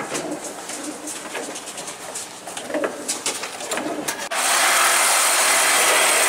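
Pigeons cooing repeatedly, with scattered light clicks. About four seconds in, a loud steady hiss starts abruptly and drowns them out.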